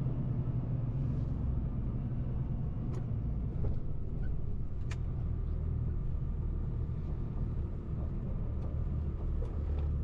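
Heavy goods truck's engine running at low speed, a steady low drone heard from inside the cab, with a few faint clicks.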